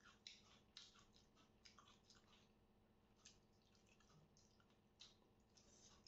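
Faint close-up chewing and lip-smacking of people eating by hand, heard as a string of short, irregular wet clicks over a low steady hum.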